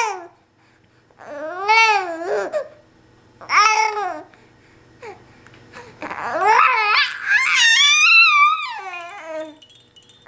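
A 15-week-old baby cooing and babbling in a few high, rising-and-falling vocal sounds, the longest near the end climbing to a higher squeal.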